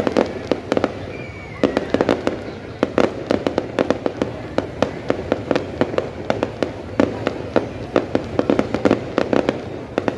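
Fireworks exploding in rapid, dense volleys of sharp bangs and crackles, with a brief lull about a second and a half in.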